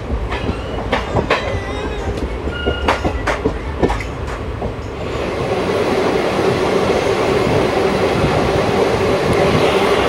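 Passenger train running along the track, with the clatter and knocks of wheels over rail joints and a few brief squeaks. From about halfway through it becomes a louder, steady rush.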